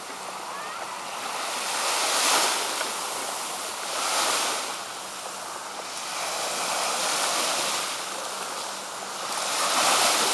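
Small sea waves breaking and washing onto a sandy beach, the surf swelling about every two to three seconds.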